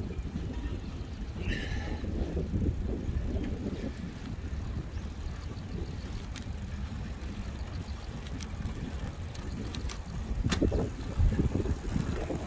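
Wind rumbling on the microphone with road noise from riding along a concrete path, steady throughout, with a short high chirp about a second and a half in and a louder stretch with a few knocks near the end.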